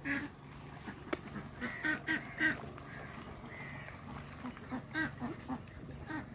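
Domestic waterfowl calling: a run of short nasal honks, several in quick succession about two seconds in, one longer call near the middle, and another cluster around five seconds.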